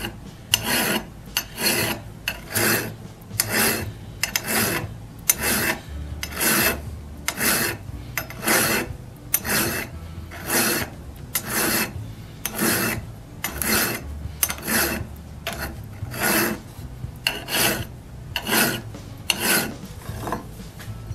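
Hand file stroking across the steel cutting lip of an auger bit, a steady run of file strokes about one and a half a second that stops shortly before the end. The bit is quite dull, so it takes many strokes to bring the edge sharp out to the pilot thread.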